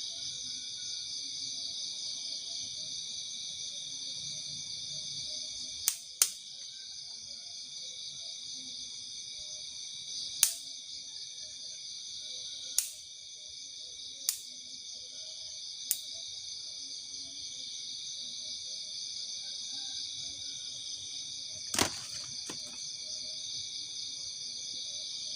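Night insect chorus, a steady high shrilling of crickets and similar insects in several pitches at once. Over it come eight sharp clicks or knocks at irregular intervals, two close together about six seconds in and two more near the end.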